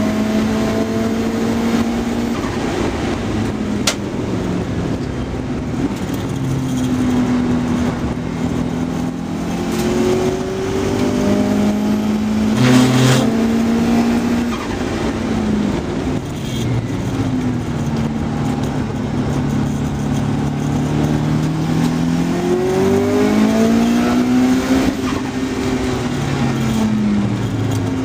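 A car's engine heard on board while it is driven hard around a race circuit. Its pitch climbs and drops repeatedly as it accelerates, shifts gear and slows for corners, over steady wind and road noise. A brief loud knock comes about halfway through.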